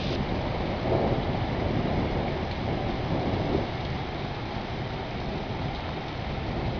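Downburst thunderstorm: heavy rain and strong gusting wind, a steady rushing noise with a deep rumble underneath that swells briefly about a second in.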